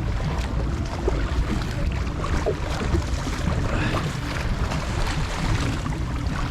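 Small boat moving on the water: a steady low rumble with wind and water noise.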